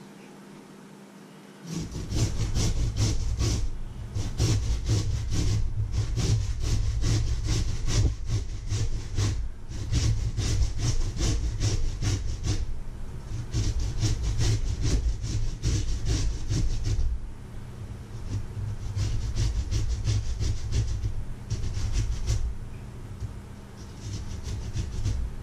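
Raw potato being grated by hand on a flat metal grater propped in a stainless steel bowl: fast, rasping back-and-forth strokes that start about two seconds in, with a few short pauses.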